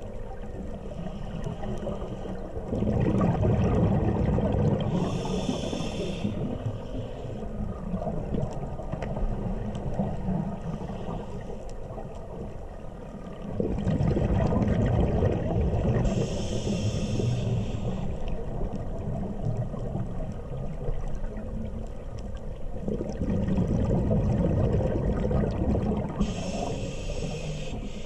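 Scuba diver breathing through a regulator underwater: three slow breaths about ten seconds apart, each a bubbling rumble of exhaled air with a short hiss from the regulator's valve.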